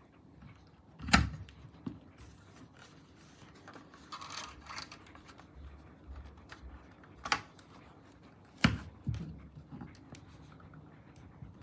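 Scattered clicks and knocks of small objects being handled, with three sharper knocks: one about a second in and two close together later on.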